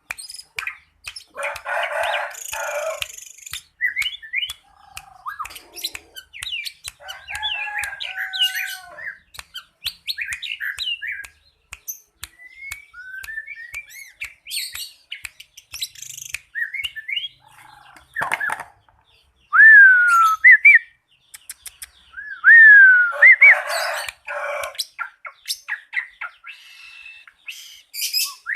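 White-rumped shama calling: short clear whistles and falling glides mixed with chirps and sharp clicks, with two harsh rasping bursts, one near the start and one about three-quarters through. The calls are those of a bird courting.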